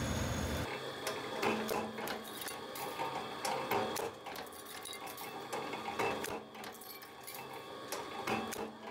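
Metal-forming press at work: irregular metallic clicks and clanks over a steady low machine hum. A louder low rumble cuts off under a second in.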